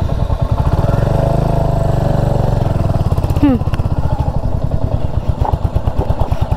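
Royal Enfield Hunter 350's single-cylinder engine running steadily at low revs, in even rapid pulses, as the motorcycle rides up a rough dirt track.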